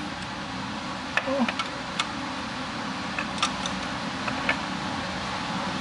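A handful of sharp metallic clicks and clinks from a ratchet wrench and socket being worked on a bolt in a car's engine bay, spread out irregularly, over a steady background hum.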